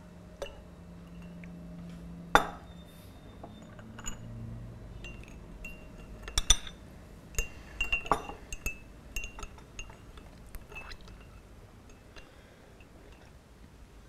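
White porcelain coffee crockery clinking: one sharp knock of a jug or cup set down, then a run of quick, ringing clinks of a metal teaspoon against a porcelain coffee cup, as when stirring in milk and sugar.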